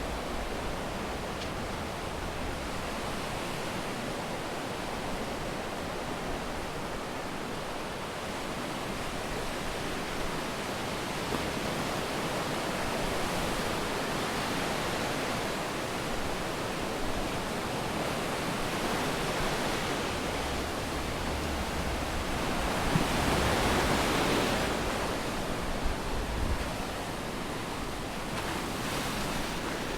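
Sea waves washing onto a sandy beach in a steady rush of surf, with one louder wave breaking about three-quarters of the way through.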